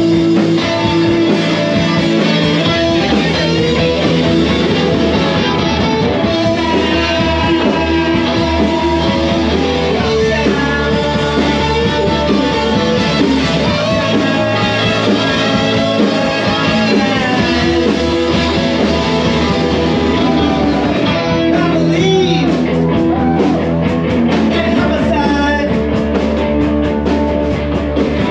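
Live rock band playing loud, with guitar and a singer.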